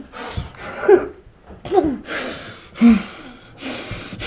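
A man's pained vocal sounds: three short strained cries with sliding pitch, about a second apart, between sharp hissing breaths and gasps, as from the pain of a bloodied, injured finger.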